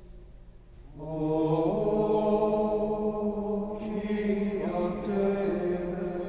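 Male schola singing Gregorian plainchant in unison in a reverberant church. The last note of one phrase dies away in the echo, and a new phrase begins about a second in, moving stepwise through held notes.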